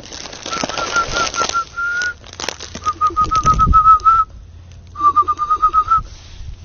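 A bird calling in three quick runs of short whistled notes on one pitch, about eight to ten notes a second, each run lasting about a second.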